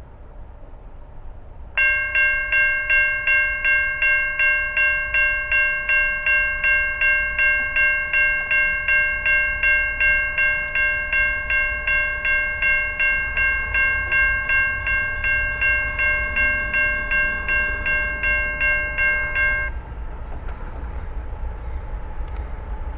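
Railroad grade crossing bell ringing at about two strikes a second as the crossing activates for an approaching train. It starts a couple of seconds in and cuts off suddenly a few seconds before the end, leaving a fainter steady rumble.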